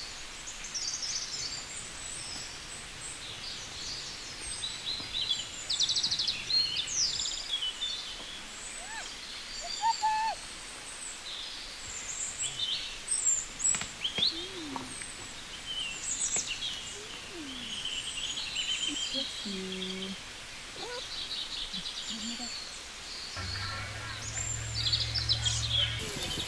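Several small birds singing and calling together: a busy mix of short high chirps, whistles and buzzy trills over faint outdoor background noise. A low steady hum comes in near the end.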